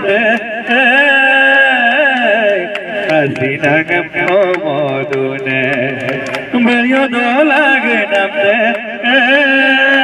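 Man singing into a handheld microphone, amplified through a loudspeaker, in long held notes with a wavering pitch.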